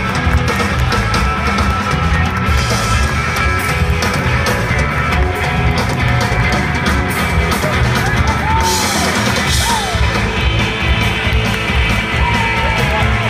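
Live rock band playing loudly, with drum kit and guitars.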